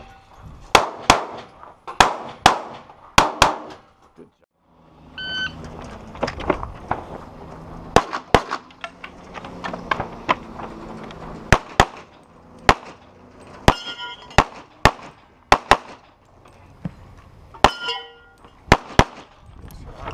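Pistol shots fired mostly in quick pairs (double taps), about twenty in all, with a short pause about four seconds in. Three times, about five, fourteen and eighteen seconds in, a steel target rings with a clang after a hit.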